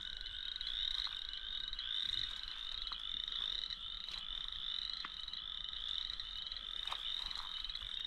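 A dense chorus of chorus frogs: many overlapping rising, grinding trills, each like a fingernail run across the teeth of a stiff comb, going on without a break.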